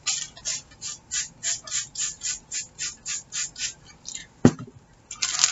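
Spray bottle of glycerin water pumped over and over, about three or four short hissing sprays a second for some four seconds, then a single sharp click.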